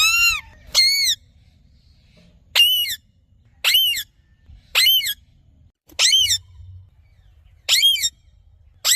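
Green parrot giving a series of about eight harsh squawks, roughly one a second, each short call rising and then falling in pitch.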